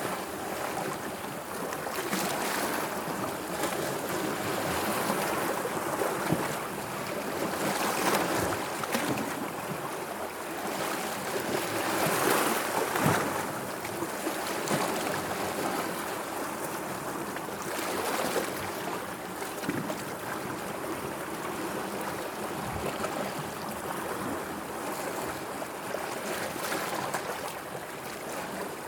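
Sea waves washing in, the water's rush swelling and falling back every few seconds.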